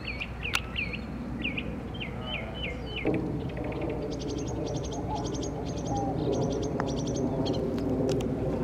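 Birds calling in the open air: repeated short chirps at first, then fast chattering trills through the middle, over a steady low background hum. A single sharp click comes about half a second in.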